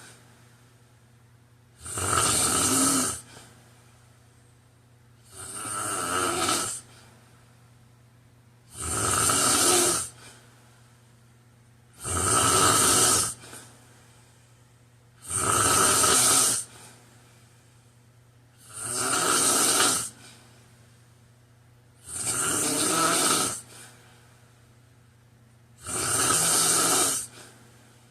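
A man snoring in a slow, even rhythm: eight loud snores, each about a second long, one every three and a half seconds, with quiet gaps between.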